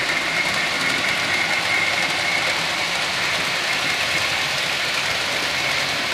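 Model train running on the layout track: a steady whirring rumble with a thin high whine held throughout.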